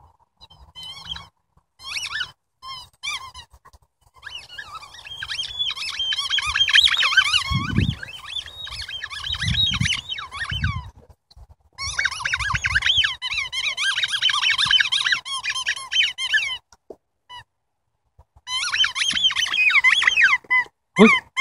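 Weimaraner chewing a purple rubber Kong squeaky toy, setting off its squeaker again and again: a few short squeaks at first, then long runs of rapid wavering squeaks with brief pauses between them. A few dull low thumps come around the middle.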